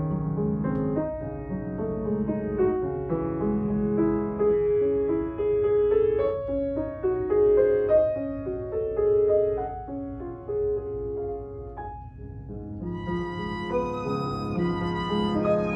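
Violin playing a melody with piano accompaniment. After a short break about twelve seconds in, the violin moves up to higher, brighter notes.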